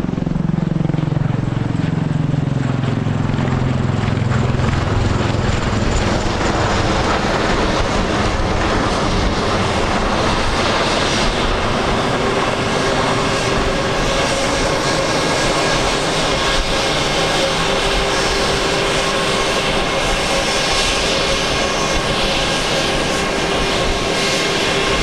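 Bell Boeing MV-22B Osprey tiltrotors flying in helicopter mode: loud, steady rotor and engine noise. A low tone falls in pitch over the first few seconds as one passes, and a steady whine joins in from about halfway through.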